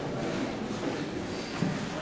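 Indistinct murmur of voices and shuffling in a large, echoing hall.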